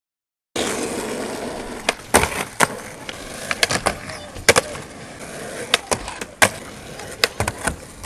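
Skateboards rolling on asphalt, with a run of sharp clacks and knocks as boards pop, land and grind on the edge of a wooden box.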